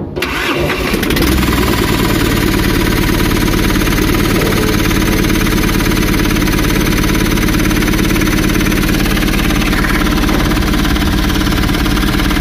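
Freshly overhauled Mahindra Supro turbodiesel engine running: it comes up in the first second and then holds a steady idle.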